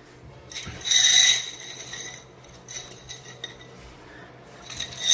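Ceramic shower tile pieces clinking and scraping against each other as they are moved around and rearranged, in two bursts about a second long: one about a second in and one near the end.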